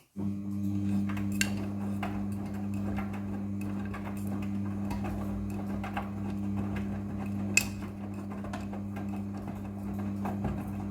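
Midea front-loading washing machine running: a steady motor hum with scattered light clicks and ticks over it. The sound starts abruptly just after the beginning.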